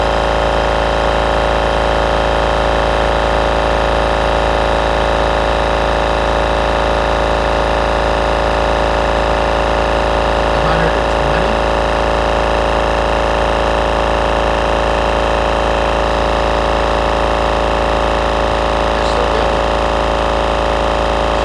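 Kobalt Quiet Tech 4.3-gallon oilless twin-stack air compressor running steadily as it pumps its tank up toward the 150 psi cut-off. A steady, even motor-and-pump hum with several held tones.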